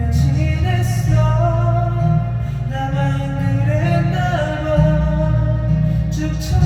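A song playing: a singing voice carrying a gliding melody over full instrumental accompaniment with a strong, steady bass.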